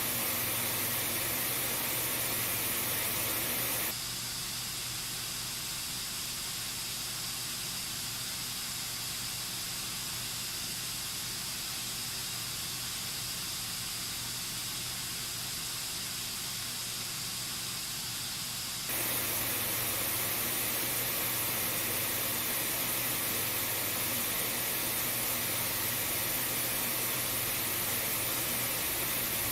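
White noise test signal played through Bluetooth speakers, the Anker SoundCore 2 and Bose SoundLink Mini II, as a steady hiss. About four seconds in it switches abruptly to a slightly quieter, thinner hiss with less in the middle, then switches back about 19 seconds in, as the two speakers take turns.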